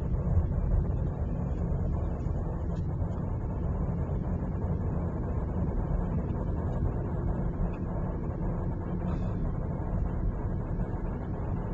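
Steady, low road and engine noise inside a moving car's cabin while it drives along at street speed.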